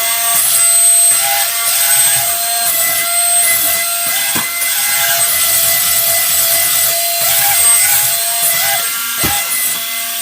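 A battery toy running: a small motor and gears grinding, with a steady electronic tone that keeps blipping briefly upward.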